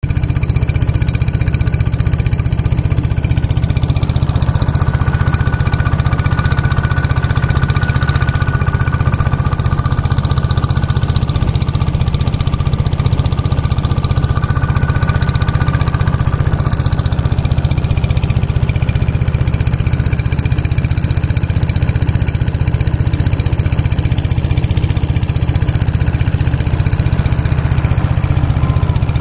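A long-tail boat's engine running steadily at speed: a loud, constant low drone, with a faint higher whine that comes in for a while in the middle.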